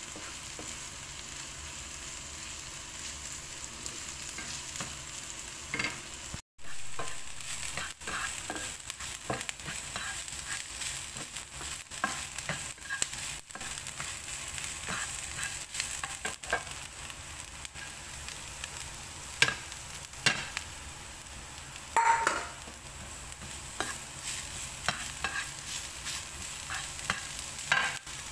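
Diced potato and corned beef frying in a nonstick pan, then chopped onion sizzling, with a spatula stirring and scraping through the food throughout. The sound cuts out for an instant about six seconds in, and there are a few sharper knocks of the spatula against the pan later on.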